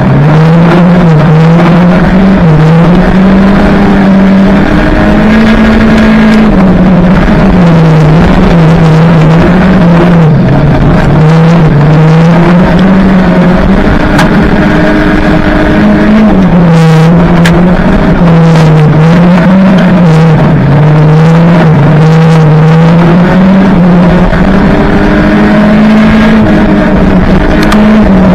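A banger racing car's engine, heard from inside its stripped-out cabin while racing round the track, very loud. Its revs keep rising and falling as the driver lifts and accelerates through the corners.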